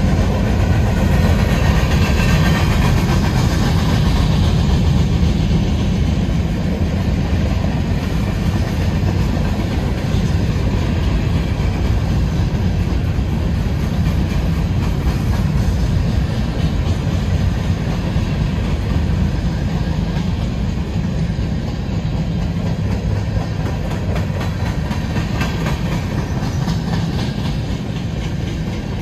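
Freight train of loaded-looking covered hopper cars rolling past, steel wheels running on the rails in a continuous heavy rolling noise, strongest in the low end and easing slightly toward the end.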